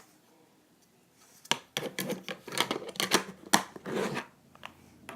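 Small ball bearings being handled and clicked together: a run of sharp clicks and short scraping rustles starting about a second and a half in.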